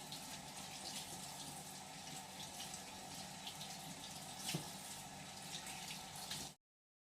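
Tap water running into a sink as vegetables are washed under it, with a knock about four and a half seconds in. The sound stops abruptly near the end.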